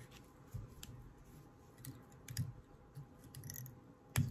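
Faint handling noise as crystal chenille is wrapped around a jig hook held in a tying vise: scattered light clicks and soft rubbing, with a sharper click near the end.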